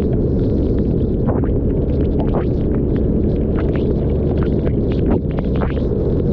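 Wind on the camera microphone of a Yamaha TMAX maxi-scooter being ridden in the rain, heard as a steady loud rumble. Frequent short sharp ticks of raindrops striking the camera run through it.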